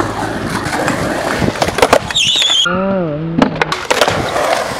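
Skateboard wheels rolling on a ramp, with sharp clacks of the board and trucks knocking on the metal coping as the staple gun trick is done. About two seconds in there is a brief high squeal, followed by a short wavering pitched tone.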